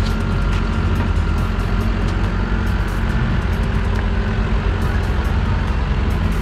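Caterpillar 420E backhoe loader's diesel engine running steadily under load as the machine drives and turns on dirt, with scattered light clanks and rattles.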